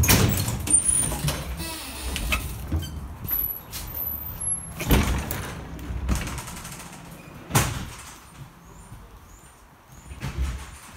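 Interior doors of an ED4M electric train car banging as they are opened and swing shut, several heavy knocks with metallic clatter: a loud one at the start, then about 5 and 7.5 seconds in. The car then grows quieter.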